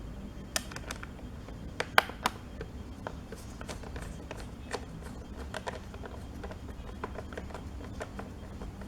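Small screwdriver clicking and tapping on a Dell Latitude E5270's bottom cover as its screws are tightened back in. The clicks are light and irregular, with a few sharper ones in the first couple of seconds, over a steady low hum.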